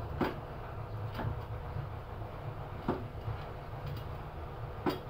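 Four sharp clicks, irregularly spaced a second or two apart, from the engine's mounting rail on a tofu grinder as the V-belt tension is being adjusted by hand, over a steady low hum.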